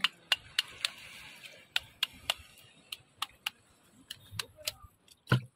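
Sea urchin shells being cracked open with a sickle-like blade: irregular sharp clicks and cracks, a few a second, with a duller knock near the end.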